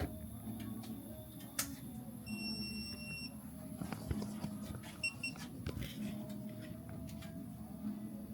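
An electronic beep about a second long, then two short beeps about five seconds in, over a low steady hum and a few scattered tool clicks.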